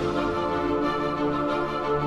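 Background music: sustained keyboard chords with a steady beat underneath.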